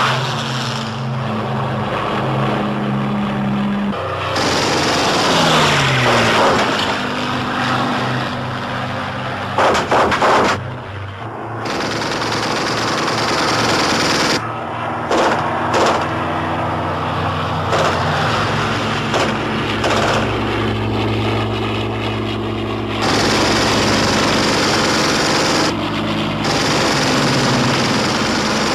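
Air-combat soundtrack of World War II fighters: piston aircraft engines running, one note falling about five seconds in as a plane passes, with bursts of machine-gun fire, the sharpest around ten seconds in.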